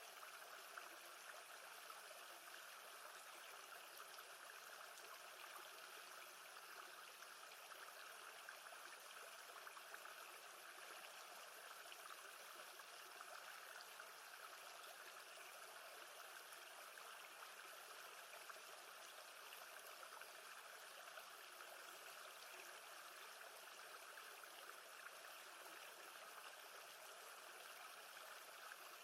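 Faint, steady wash of lake water, an even hiss without separate splashes.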